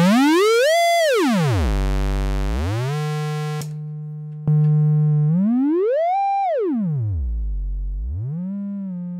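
Moog DFAM's VCO 1 holding one long note while its frequency knob is swept by hand, the pitch gliding up high, down very low and back. A few seconds in the bright, buzzy pulse wave gives way to the softer triangle wave, which is struck again and swept up and down once more.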